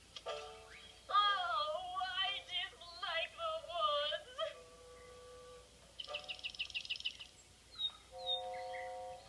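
Animated soundtrack with sustained music notes under a wavering, yodel-like vocal melody for about three seconds. Then, about six seconds in, a bird's rapid chirping trill, followed by a couple of short bird calls near the end.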